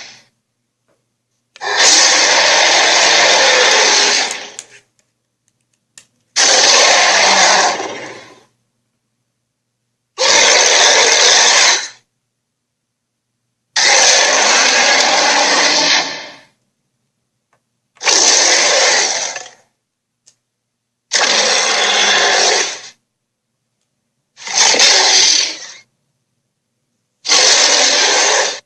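Tyrannosaurus-like dinosaur roar sound effects, played one after another eight times. Each roar lasts about one and a half to three seconds and is followed by silence.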